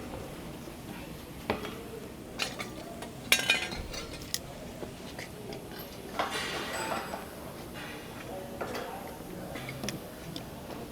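Tools and plumbing parts clinking and knocking as they are handled: a few separate knocks, a louder clatter about three seconds in, and a longer scraping rustle about six seconds in.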